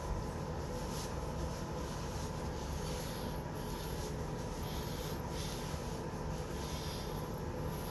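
Soft, scattered rubbing strokes over a steady low background hum.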